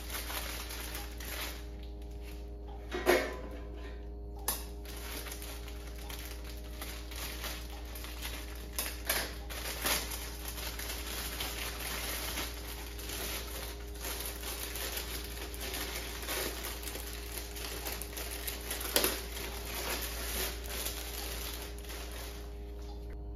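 Loaf of bread and its packaging being handled on a kitchen counter: irregular small taps, rustles and clicks, with sharper knocks about 3, 10 and 19 seconds in, over a steady background hum.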